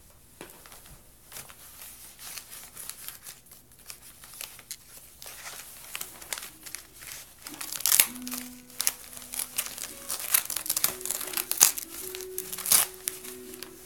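Wrapping paper crinkling and rustling as it is cut and handled with small scissors. The crisp crackles are irregular and grow denser and louder in the second half.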